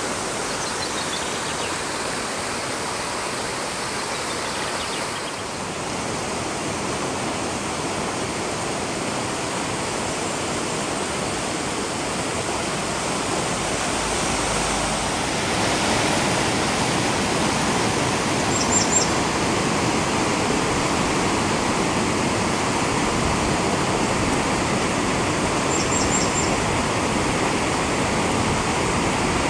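Rushing water: at first a small stream spilling out of a culvert, then a muddy river swollen by heavy rain churning through rapids. A steady rushing noise that grows louder about halfway through.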